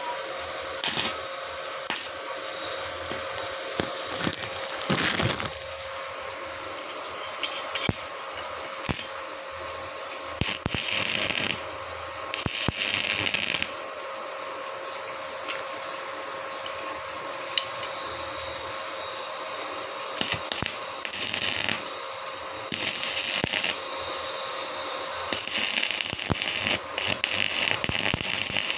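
Stick-welding arc from a small RYU inverter welder crackling and sizzling as an electrode is run on thin steel. It comes in several separate bursts of one to three seconds, the welder striking and breaking the arc in short runs. A faint steady hum sits under it.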